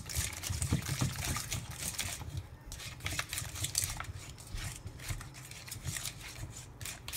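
Plastic spoon stirring a wet egg and mayonnaise mixture in a stainless steel bowl: irregular scraping and wet clicking against the metal.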